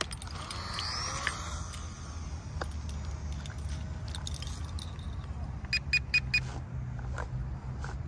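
Small electric RC warbird's motor and propeller spinning up with a brief rising whine about a second in, over steady wind rumble on the microphone. About six seconds in come four quick electronic beeps.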